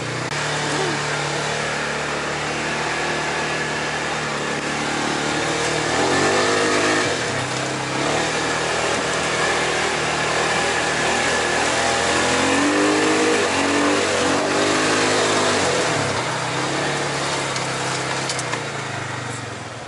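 Polaris side-by-side engine running while driving, with steady drive noise. Its pitch climbs about six seconds in, then rises and falls several times later as it speeds up and eases off.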